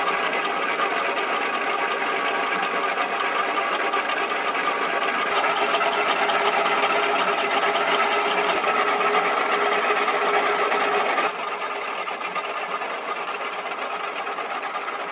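Small milling machine running, its spindle driving the cutter through a slow hand-fed cutting pass, a steady fast mechanical rattle. The sound drops suddenly and turns duller about eleven seconds in.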